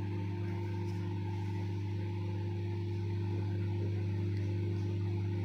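Microwave oven running in convection mode: a steady, even hum.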